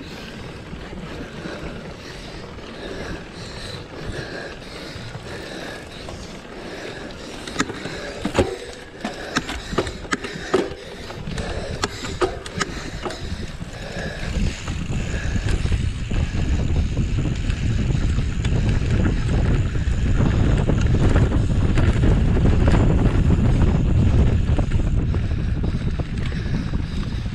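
Wind rushing over the microphone and the rattle of a mountain bike being ridden over rough ground, with a run of sharp clicks and knocks around the middle. The low wind rush grows much louder from about halfway through.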